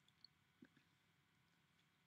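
Near silence: faint microphone room tone with a couple of tiny ticks.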